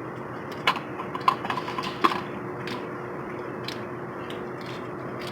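A few light, irregular clicks and taps as a spin-on oil filter is threaded onto the engine block by hand, over a steady faint hum.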